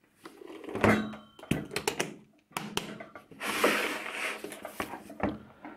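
Hard plastic equipment case being handled on a tabletop: several knocks and clicks as the lid is shut and the case turned around, with a scraping, rustling stretch a little past halfway as it slides.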